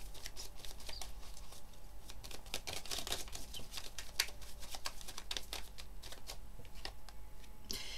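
A deck of tarot cards being shuffled and handled: a run of quick, light papery clicks and rustles, thinning out in the second half as cards are drawn and laid out.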